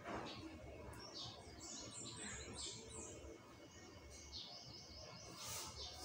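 A small bird singing outside: runs of short, high chirps, each run stepping down in pitch, heard twice. Near the end come a few short hissing swishes.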